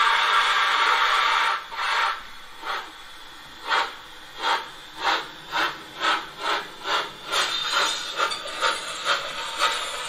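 Steam-locomotive sound from the ESU LokSound 5 decoder in a Gauge 1 model of a Prussian T3 (class 89) tank engine pulling away: a steady hiss of steam for about a second and a half, then exhaust chuffs that start slowly and quicken as the engine gathers speed.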